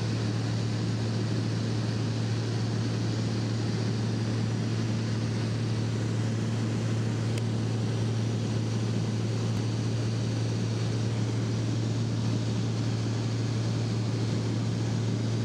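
Engine and propeller of a small sightseeing plane droning steadily in flight, heard from inside the cabin as a low, even hum.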